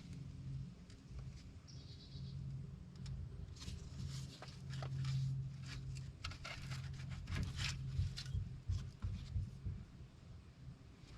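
Scattered sharp clicks and knocks of parts and tools being handled during shock absorber work, mostly in the middle of the stretch, over a low steady hum.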